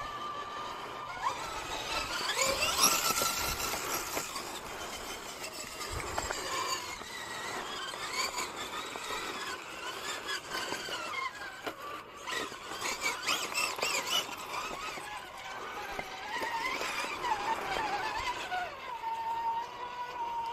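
RC rock crawler's electric motor and gears whining, the pitch rising and falling with the throttle as it crawls, with scattered clicks and scrapes.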